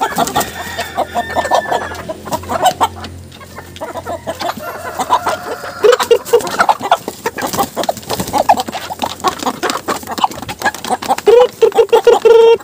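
A flock of chickens clucking and squawking excitedly at feeding time, over many sharp taps. A loud, held call sounds about six seconds in and again for about a second near the end.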